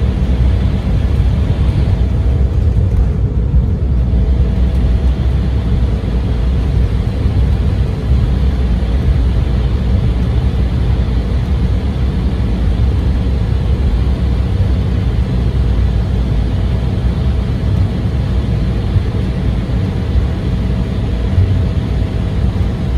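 Cabin noise of an Embraer E175 rolling along the runway just after landing: a steady low rumble from the wheels and its underwing turbofan engines, with a faint steady whine.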